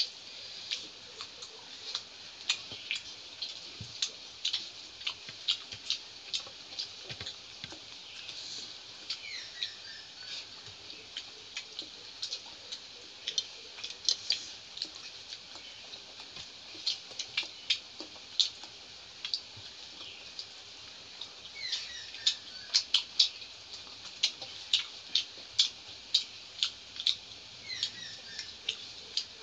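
Close-up eating sounds of rice and curry eaten by hand: quick wet mouth clicks and smacks of chewing, several a second and irregular, with a few short falling squeaks.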